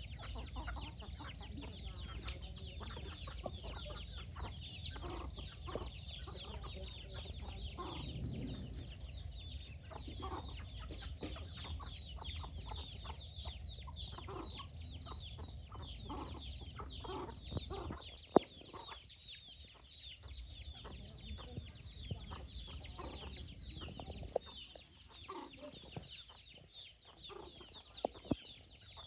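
Chickens clucking while they feed, with a dense run of short, high chirps over a low, steady rumble that fades about three-quarters of the way through. A few sharp clicks stand out, the loudest a little past the middle.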